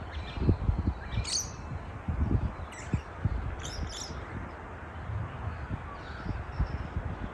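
Birds calling outdoors, a few short high calls spread through the first half, over a steady low rumble.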